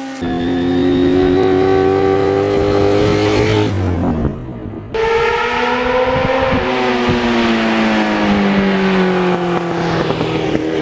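Motorcycle engine running at a steady road speed, heard in two spliced stretches: the pitch drifts slightly and breaks off about 4 s in, then comes back and slowly falls.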